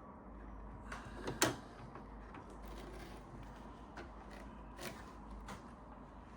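Scattered light knocks and clicks of objects being handled, the loudest about a second and a half in, over a faint steady hum.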